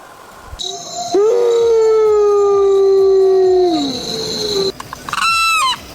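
An animal's long, steady call, held about two and a half seconds and falling in pitch at the end, followed near the end by a short, curving call.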